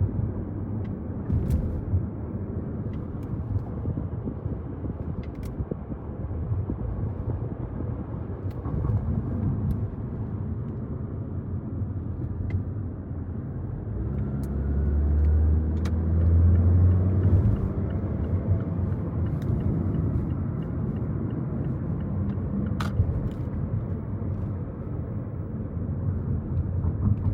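Steady road and engine noise of a car driving, heard from inside, with a louder low hum for a few seconds just past the middle.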